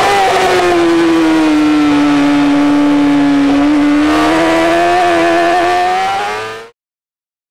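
Racing superbike engine at full race pace, heard from an onboard camera mounted by the front wheel. The revs ease down for a couple of seconds, then climb again, and the sound fades out quickly about a second before the end.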